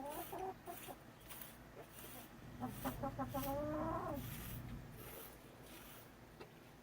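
Chicken calling: a short call right at the start and a longer call that bends up and down about two and a half seconds in, with faint soft ticks between.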